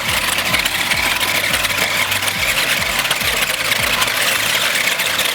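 Small electric motors of toy remote-control cars whirring steadily as they drive, with a dense fine rattle.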